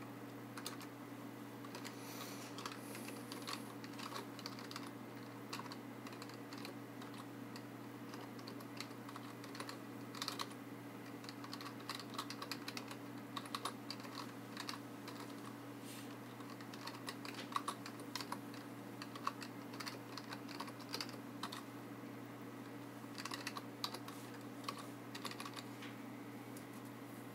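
Typing on a computer keyboard: an irregular run of key clicks over a steady low hum.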